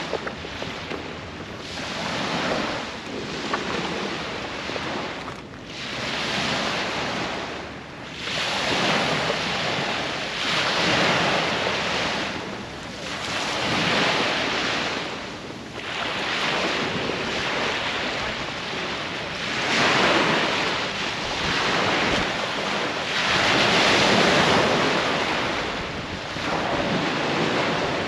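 Small waves breaking and washing up the shore, swelling and fading every two to four seconds, with some wind on the microphone.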